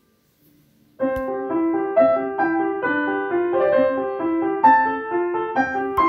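Background piano music, a steady run of notes that begins about a second in after a brief silence.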